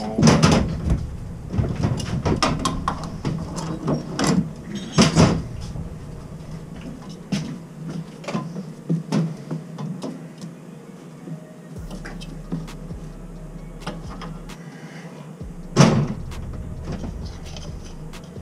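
Metal tools and fittings clicking and knocking against boiler piping while a replacement relief valve is being fitted. The knocks come at scattered moments, and the loudest are just after the start, around four to five seconds in, and near sixteen seconds.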